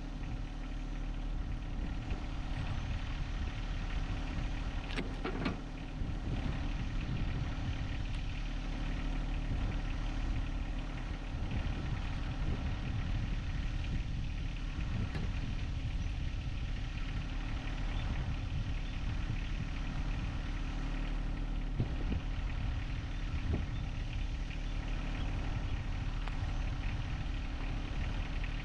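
John Deere 1025R compact tractor's three-cylinder diesel engine running steadily, with a few sharp knocks, around five seconds in and again past twenty seconds.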